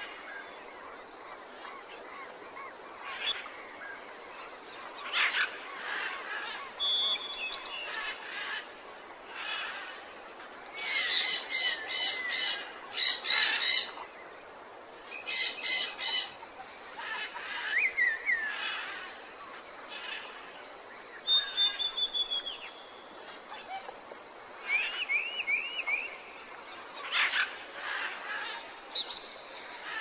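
Several wild birds chirping and calling over the steady rush of a small stream running over rocks. The loudest part is a run of rapid, stuttering calls in the middle, among shorter whistles and sliding notes.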